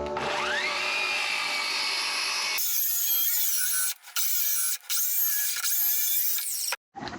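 A woodworking power tool running on wood. Its motor pitch climbs to a steady whine, then the sound carries on in short pieces that cut off abruptly.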